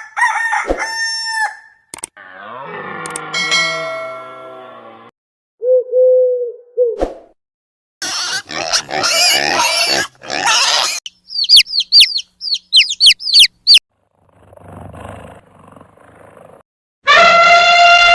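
A run of separate animal calls, one after another with short gaps, among them a rooster crowing. They include pitched calls with many overtones, a noisy stretch, a quick series of high chirps and a strong call that falls in pitch near the end.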